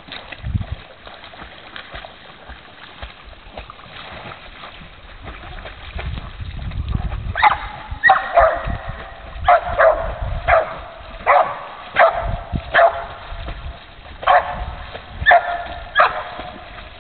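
Golden retriever barking while swimming: about a dozen short barks, spaced under a second apart, starting about halfway through.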